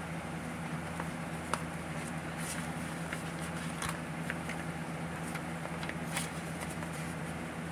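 Paper dollar bills rustling, with a few sharp clicks as they are handled and tucked into a cash binder's pocket, over a steady low hum.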